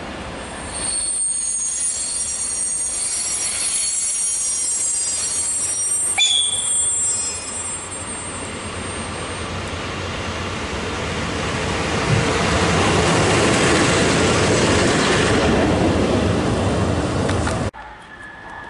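Electric locomotive 362.001 (ES499.1001) approaching and passing along the platform track. For the first several seconds high thin wheel squeal rings out, with a brief sharp sound about six seconds in. The rumble and rush of the locomotive then grow steadily louder, peak shortly before the end and cut off suddenly.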